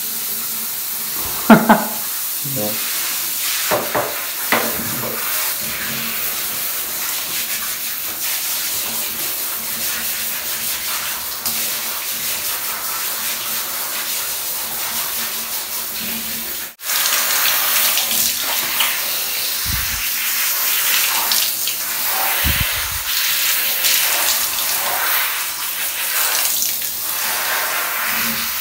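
Handheld shower head spraying water in a bathtub as a dog is rinsed: a steady hiss of spray. A sharp knock comes about a second and a half in, and about halfway through the spray drops out for an instant and comes back louder.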